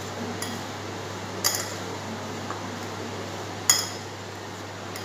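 A spoon stirring a puffed-rice mixture in a glass bowl. The spoon clinks sharply against the glass twice, about a second and a half in and again near four seconds, over a low steady hum.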